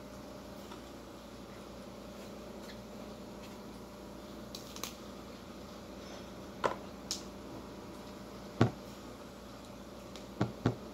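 Eating sounds from a meal of grilled chicken and rice eaten by hand off a plate: a few short, sharp clicks and knocks, the loudest about two-thirds in and two close together near the end, over a steady low hum.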